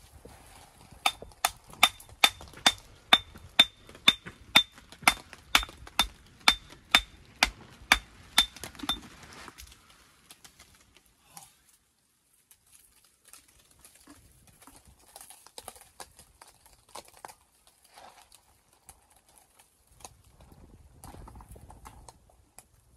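Hammer striking stone in a steady run of about three ringing blows a second, typical of dressing a walling stone to shape, stopping after about eight seconds; quieter scattered knocks of stone follow.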